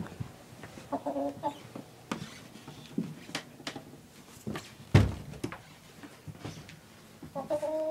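A rooster clucking in two short runs of calls, about a second in and again near the end, among clicks and knocks from handling, with one loud thump about five seconds in.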